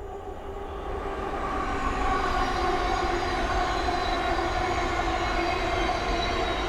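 Thameslink Class 700 electric multiple unit passing on the Midland Main Line. The rush of the train builds over the first two seconds, then holds steady with a whine from the train over it.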